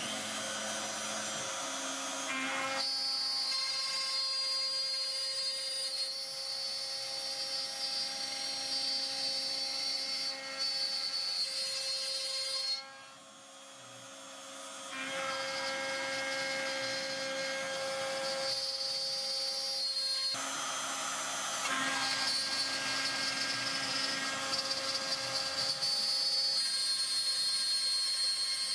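Spindle of a desktop CNC milling machine running at high speed while a small end mill profiles a clear plastic sheet. The result is a steady high whine mixed with cutting noise that shifts abruptly a few times as the tool moves, and turns quieter for about two seconds near the middle.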